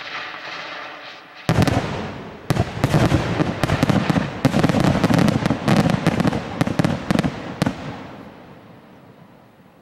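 Fireworks display: a barrage of aerial bursts that starts suddenly about a second and a half in with dense, rapid bangs and crackling. After about seven and a half seconds the bangs stop and the crackle fades away.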